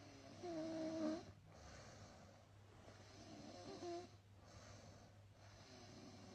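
A person snoring quietly, three breaths about two and a half seconds apart, each with a thin whistly tone; the first is the loudest.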